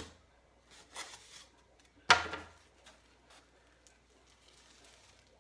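Cardboard shipping box and its packing being handled and opened by hand: a click, a short rustle about a second in, then a sharp knock just after two seconds, the loudest sound.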